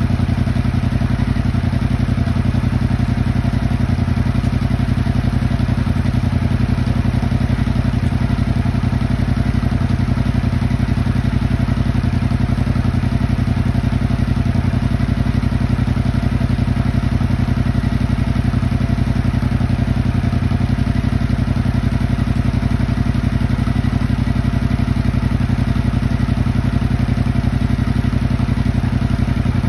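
Yamaha motorcycle engine with a crossplane crank idling steadily while it warms up after a cold start.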